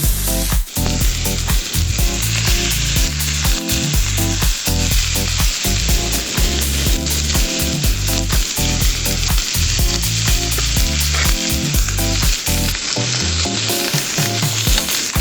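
Food frying in a hot pan, a loud steady sizzle.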